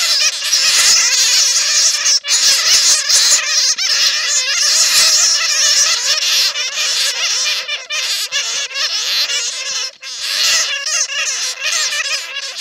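Many bats caught in a net squeaking and chattering together, a dense, continuous chorus of high squeals with a few brief breaks. This is a bat-lure call.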